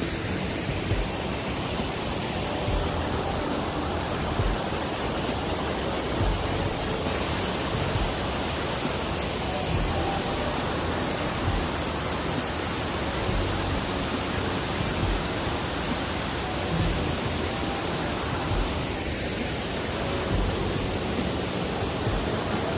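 Steady rushing of water from a waterfall or fast-flowing stream, with occasional soft low bumps.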